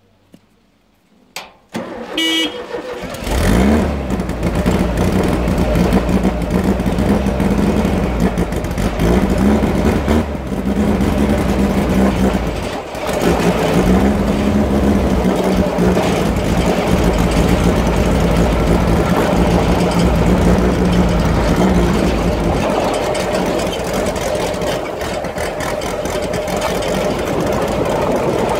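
Off-road buggy engine starting about three seconds in after a couple of clicks, then running and revving up and down as the buggy drives, with a brief dip about halfway and a lower, steadier note near the end.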